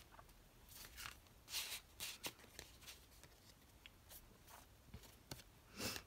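Faint rustling and a few short scrapes of card stock and paper being handled; the loudest scrape comes near the end.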